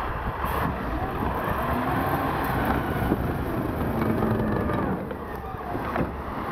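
Engine of a small tracked all-terrain vehicle running under load as it shoves snow with its front blade, its pitch rising and falling as the driver works the throttle.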